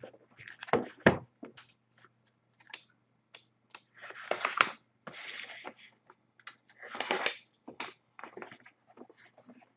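Hands working at a sealed trading-card box: scattered clicks and taps, with two longer crinkling rustles about four seconds in and again about seven seconds in, as the packaging is torn and handled.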